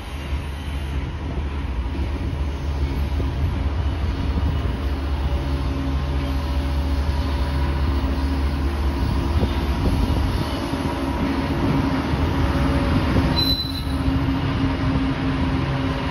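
Mid-train Canadian Pacific GE ES44AC diesel locomotive passing close by, its engine a steady low drone that grows louder over the first few seconds as it comes level, over the rumble of coal hopper wheels on the rails. A brief high wheel squeal sounds about 13 seconds in.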